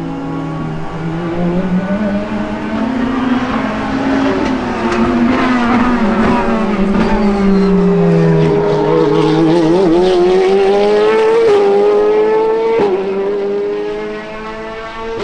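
Corvette Z06 GT3.R race car's flat-plane-crank V8 at speed, its note rising and falling as it slows and accelerates. Near the end it climbs again with two quick upshifts.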